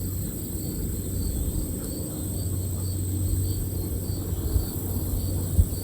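Insects, cricket-like, chirping about twice a second in an even rhythm over a steady low rumble.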